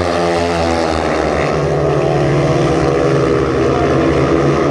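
Four speedway motorcycles racing, their 500 cc single-cylinder methanol engines at high revs. Several overlapping engine notes rise and fall as the riders work the throttle through the bend.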